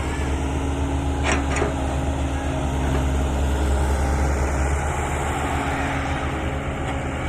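Heavy diesel engine of an excavator running steadily. Two brief high squeaks come about a second in.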